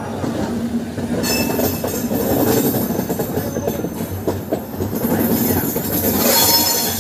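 Passenger train coaches running round a curve, heard from an open coach door: a steady rumble of wheels on the rails with a few clacks. Thin, high wheel squeal comes in briefly about a second in and again more strongly near the end.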